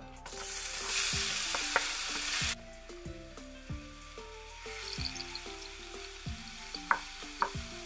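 Chopped onion sizzling in hot oil in a nonstick frying pan: a loud sizzle for the first two seconds or so as it goes in, then dropping to a quieter steady sizzle while it is stirred with a wooden spatula, with a few light clicks of the spatula. Background music with deep bass notes underneath.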